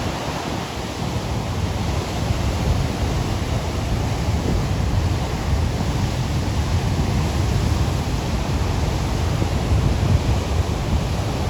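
Sea surf washing steadily on the shore, with wind buffeting the microphone as a low rumble.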